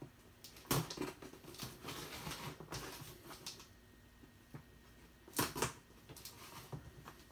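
A mystery box being handled and opened by hand: light rustling, scraping and small clicks of the packaging, with a sharper knock under a second in and another about five and a half seconds in.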